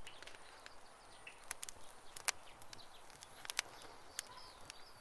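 Campfire crackling: burning wood with a steady hiss and several sharp pops, the loudest a little past two seconds in.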